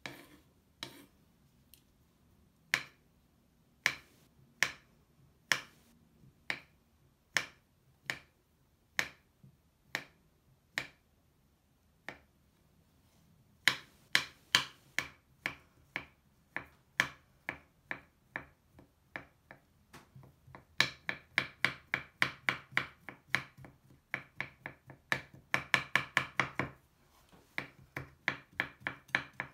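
Kitchen knife cutting a crumbly Lush bubble bar on a wooden cutting board: separate strikes of the blade through the bar onto the board, about one a second at first. The strikes speed up about halfway through into quick chopping, fastest in the last third, with a short pause near the end.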